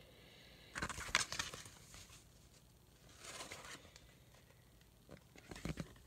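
Paperback comic book being handled and its pages turned, rustling faintly in three short bursts: about a second in, around three and a half seconds in, and near the end.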